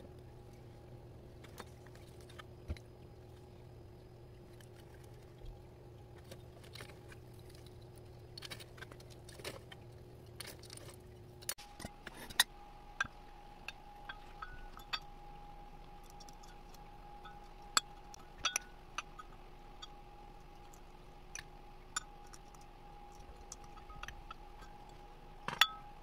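A metal spoon clicking and scraping against a small glass bowl and pots while sand and soil are spooned in, with scattered sharp clinks that are louder in the second half. A faint steady hum runs underneath.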